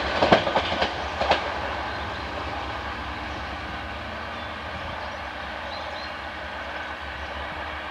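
Two coupled DR1AC diesel multiple units running away along the track: a few sharp wheel clicks over the rail joints in the first second and a half, then a steady rumble that fades as the train recedes.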